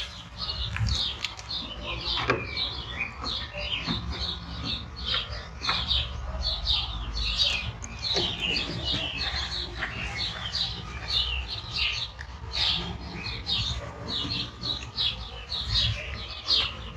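Small birds chirping busily, a quick run of short falling chirps several times a second, over a low rumble.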